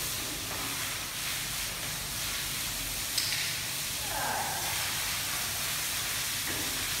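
Garden hose spraying a steady hissing jet of water onto an elephant's back.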